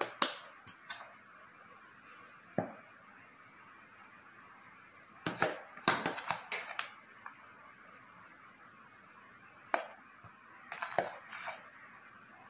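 Scattered light clicks and taps of a spoon on a bowl and plate as coleslaw salad is served onto a cabbage leaf, coming in small clusters about five seconds in and again near the end, over a faint steady hiss.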